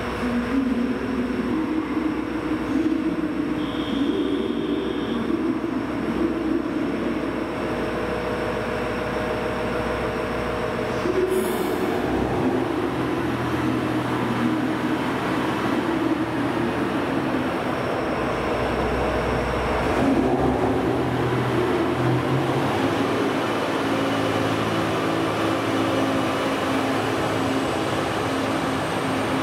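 Train running through a station, a continuous hum mixed with wheel and rail noise, whose pitch shifts about twelve seconds in and again around twenty seconds. A brief high squeal comes about four seconds in.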